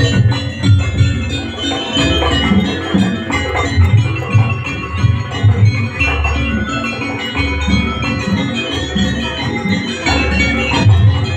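Live jaranan accompaniment from a gamelan-style ensemble: metallophones and gongs ringing over a steady drum beat.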